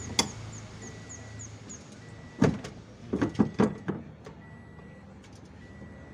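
Sharp knocks and clanks of parts or tools being handled: one just after the start, another about two and a half seconds in, then four quick ones in a row a second later.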